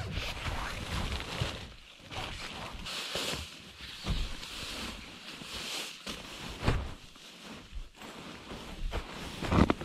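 Nylon tent fabric and camping gear rustling and crinkling as an inflated sleeping pad and a sleeping bag are pushed into a small tent, with a few soft thumps.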